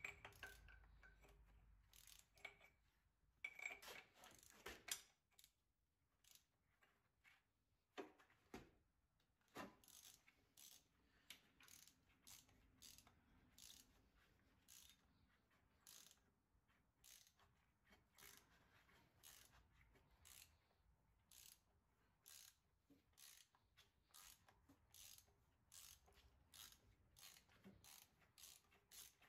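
Faint ratcheting wrench clicking in short strokes, about one to two clicks a second, as a fastener on a diesel engine's cylinder head is worked loose.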